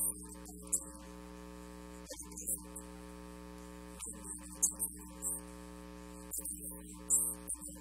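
Steady electrical mains hum, several steady tones at once, with short bursts of high hiss coming and going irregularly over it.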